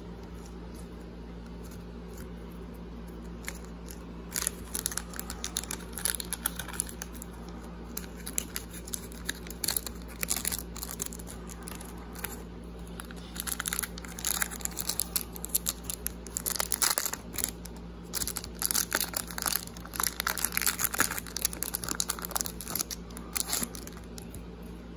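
Foil trading card packs crinkling and tearing as they are handled and ripped open. The crackles come in clusters of short, sharp bursts, starting a few seconds in.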